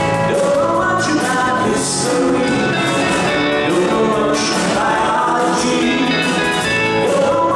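Live rock band playing a song: a male lead voice sings over electric guitars, keyboard and drums with cymbals, heard through the stage PA in a theatre hall.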